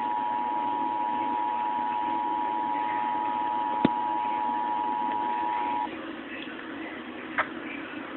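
Emergency Alert System attention signal: a steady two-tone alarm near 853 and 960 Hz that cuts off suddenly about six seconds in, leaving a low background hum. A sharp click sounds about four seconds in.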